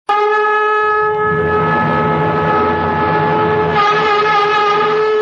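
A conch shell (shankh) blown in one long, steady note that grows brighter about two-thirds of the way through.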